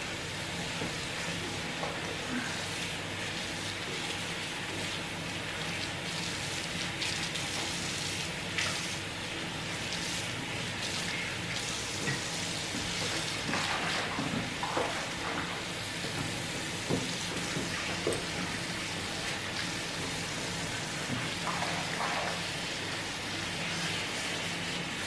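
Kitchen faucet running into a sink while a glass pot lid and a metal wire rack are rinsed under it, with scattered clinks and knocks as the pieces are handled.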